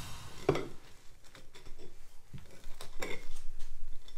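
Kitchen knife cutting through the crisp golden crust of an oven-fried cheese patty: a few crunching crackles, the loudest about half a second in and again about three seconds in.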